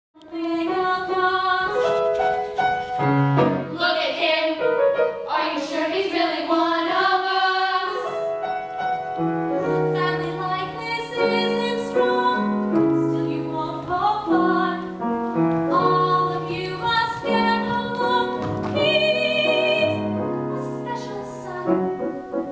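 Musical-theatre song: women's voices singing over instrumental accompaniment, with a wide vibrato on some held notes.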